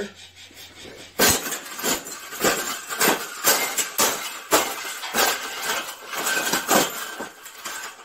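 A wire birdcage being stomped and crushed under boots: repeated irregular metallic clanks and rattling of the bending wire, starting about a second in.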